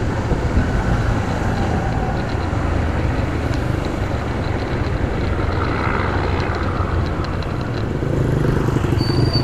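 Motorcycle engine running steadily with road and wind noise on the microphone, heard from the rider's camera. A short high beep sounds right at the end.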